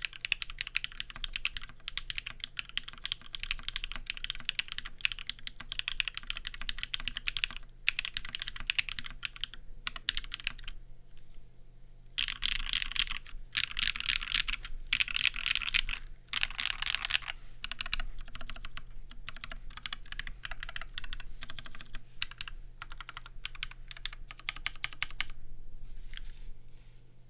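Fast continuous typing on a Linworks x TGR Dolice Alice-layout mechanical keyboard with BSUN BCP switches on an aluminium plate, a dense patter of key strokes. The typing breaks off for about a second near the middle, pauses briefly again a few seconds later, and thins to scattered strokes near the end.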